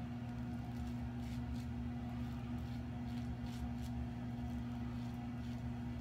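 Double-edge safety razor (iKon 102 with a Bluebird blade) scraping through lathered stubble in short strokes on an across-the-grain pass, faint under a steady low electrical hum.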